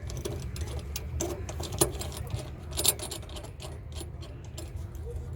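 A car running, heard from inside, with a steady low engine and road rumble. Over it come irregular light rattling clicks, two of them sharper, about two and three seconds in.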